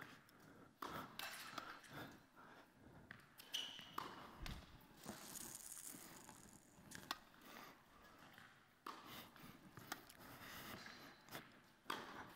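Tennis rally on an indoor hard court, heard faintly: sharp pops of racket strikes and ball bounces, irregular and a second or more apart.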